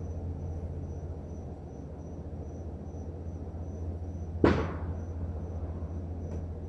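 Low steady rumble of a car driving, with one sharp bang about four and a half seconds in that rings out briefly, and a faint click near the end.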